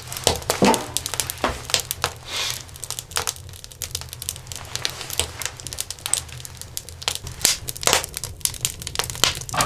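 Wood fire crackling in a wood stove: irregular sharp snaps and pops throughout, over a steady low hum.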